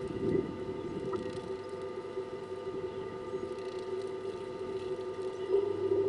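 A motor running with a steady low hum that grows a little louder near the end, with a brief low rumble just after the start.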